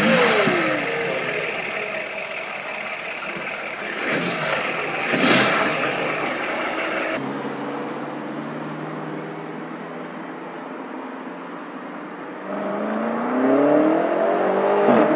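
BMW M5's twin-turbo V8 engine: a rev falling away at the start, then, after a sudden change about seven seconds in, a steadier, lower engine note. Near the end the engine note rises and grows louder as the car accelerates.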